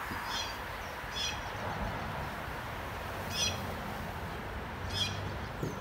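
A bird calling: four short, high chirps spaced a second or two apart, over a steady outdoor background hiss.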